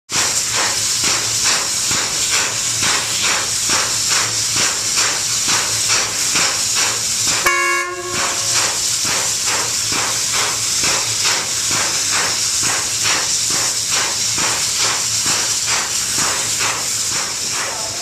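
SY-class 2-8-2 steam locomotive standing with a loud, steady hiss of escaping steam, pulsing evenly about three times a second. About seven and a half seconds in, the hiss breaks off for half a second while a short pitched tone sounds.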